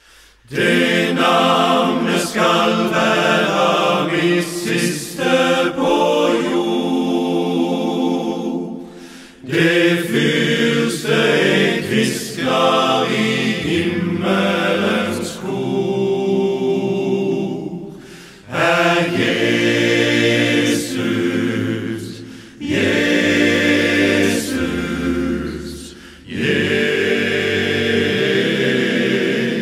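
Men's vocal ensemble singing a cappella, in several phrases with short breaks between them.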